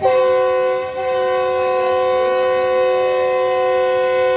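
Diesel locomotive's multi-tone air horn sounding one long, steady chord, with a brief dip about a second in.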